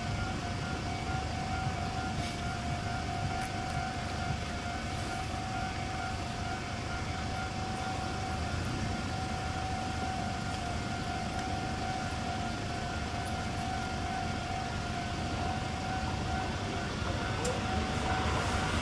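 Tobu 8000 series electric train approaching, heard as a low rumble that grows louder over the last few seconds. A steady high tone holds throughout and cuts off near the end.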